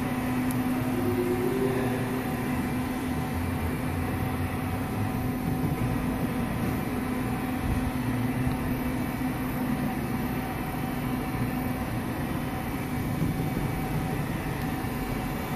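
Southwestern Industries LPM vertical machining center running its automatic warm-up cycle, its spindle turning while the axes traverse. It makes a steady mechanical hum with a constant low tone.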